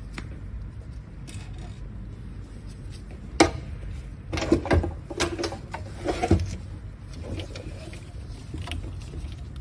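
Handling noise from gloved hands working at the cables and connectors inside an opened hybrid inverter. A sharp click comes about three and a half seconds in, then a cluster of knocks and rustles and a few scattered ticks, over a steady low hum.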